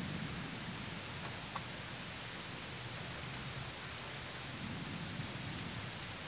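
Steady rain falling during a thunderstorm: an even hiss, with a single sharp click about one and a half seconds in.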